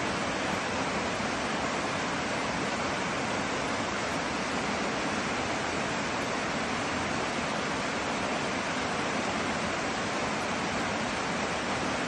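Mountain creek rushing down a small rocky cascade: a steady, even rush of falling and splashing water.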